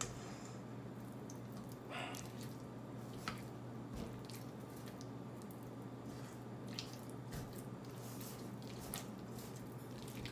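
Spatula stirring thick cream cheese dip in a stainless steel bowl: soft, irregular squishing with light scrapes and clicks against the bowl, over a low steady hum.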